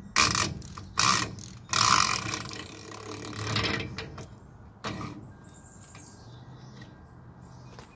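Ratchet clicking in about five short bursts as it turns a 4-pin spline nut socket to loosen the front spindle nut, dying away after about five seconds.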